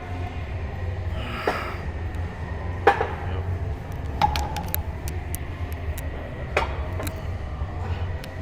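A few sharp metallic clanks, two of them ringing briefly, over a steady low rumble.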